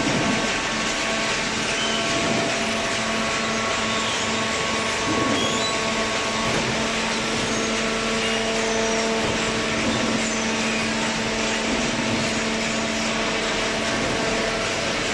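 Machinery running steadily: a loud, even whirring noise over a constant hum.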